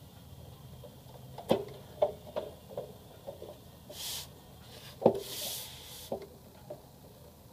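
Plastic top cover of a laser printer being lifted and set on its housing: a run of knocks and clicks, the loudest about a second and a half in and again about five seconds in, with two short scraping rubs of plastic between them.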